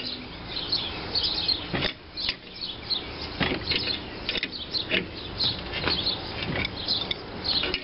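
Adjustable wrench turning a gear puller's forcing screw to push a crankshaft out of a cast iron flywheel, with irregular metal clicks and knocks about once a second as the wrench works and is refitted. The screw turns easily, under little pressure. Small birds chirp throughout.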